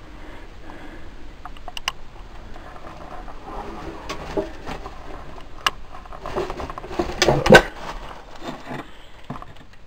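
Scattered light clicks and knocks with some shuffling, growing busier about halfway through, with a louder knock about seven and a half seconds in.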